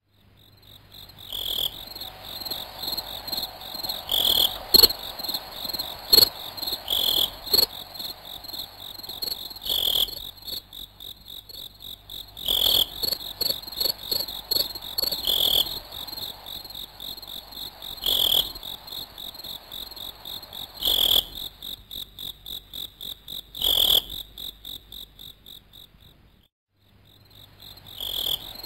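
Insect chirping: a steady, fast-pulsing high trill with a sharper, louder accent about every three seconds. It dies away briefly near the end and then starts again.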